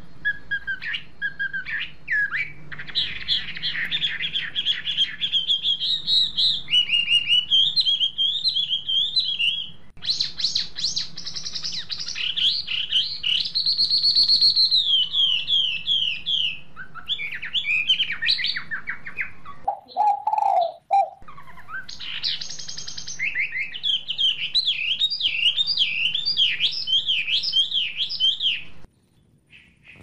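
Small songbirds chirping and singing in fast runs of high, repeated chirps and trills. The sound breaks off and changes abruptly several times, with a brief lower call about twenty seconds in.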